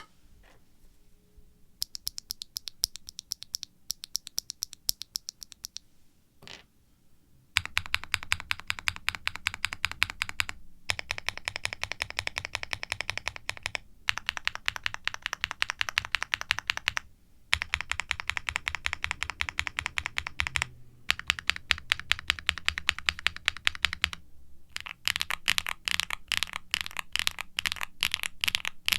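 Typing on a QwertyKeys QK65 mechanical keyboard with factory-lubed HMX Poro linear switches, a polycarbonate plate, full foam dampening and GMK double-shot ABS keycaps: a fast patter of keystrokes with some clack, muted and toned down. The typing starts about two seconds in, comes in runs broken by short pauses, and is loudest and brightest near the end.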